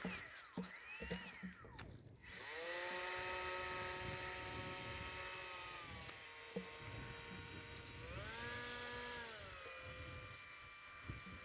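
Small electric motor of a homemade RC model plane whining faintly at a steady pitch. It drops in pitch about six seconds in, rises briefly a couple of seconds later, then drops again as the throttle changes.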